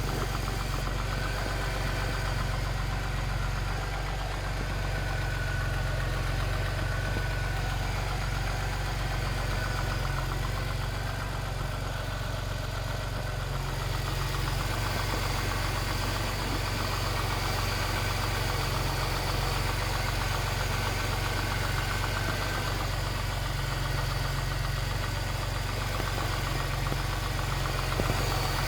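Jaguar S-Type 3.0 V6 engine idling steadily with a rattle, the sign of a loose timing chain.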